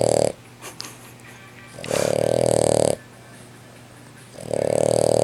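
Boston Terrier snoring loudly, a brachycephalic (short-nosed) dog's snore. One snore ends just after the start, a full one comes about two seconds in, and another starts near the end, each about a second long and roughly two and a half seconds apart.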